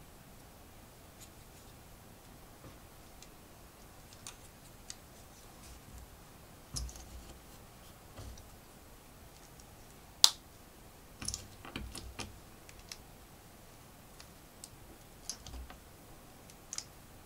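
LEGO plastic bricks being handled and pressed together: scattered small clicks and light rattles in short clusters, with one sharp snap about ten seconds in.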